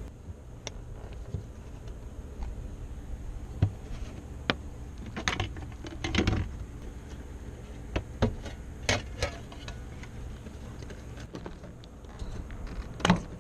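Car engine running steadily at idle, with a string of sharp metallic clicks and clinks from tools or parts being handled. The loudest clicks come about four, six, nine and thirteen seconds in.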